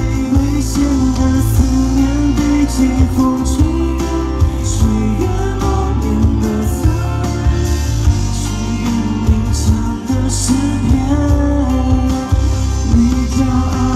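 Pop song performed live: a sung melody over guitar, bass and drums with a steady beat.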